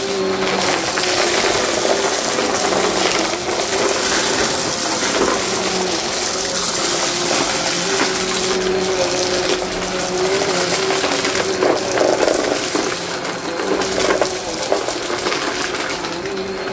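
Vacmaster upright vacuum cleaner running on shag carpet: its motor hums steadily under a rush of air, with a constant crackle and rattle of small debris being sucked up through the cleaner head.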